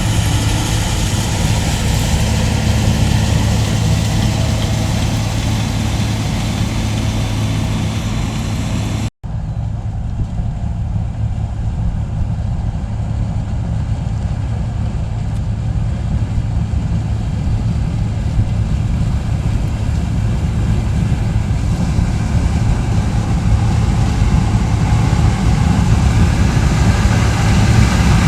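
New Holland TX68 combine harvester's diesel engine running steadily with a low, even hum. About nine seconds in the sound cuts out for an instant, then carries on duller.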